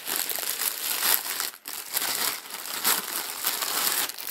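Thin clear plastic wrapping crinkling and crackling as hands handle it and pull it off a lens accessory, with a brief pause about one and a half seconds in.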